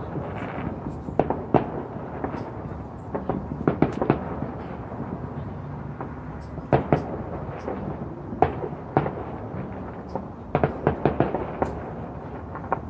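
Distant aerial fireworks bursting: sharp bangs in quick clusters of two to four every couple of seconds, over a steady background noise.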